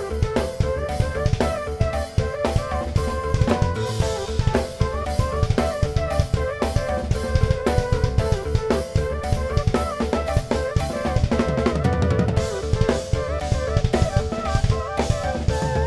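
Acoustic drum kit played freely with bass drum, snare, toms and cymbals in fast, busy patterns, over an electronic ambient backing track with a held synth note and a moving synth melody.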